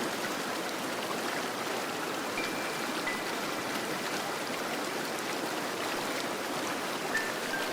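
Fountain water splashing and falling steadily into its basin, with a few faint short high tones over it.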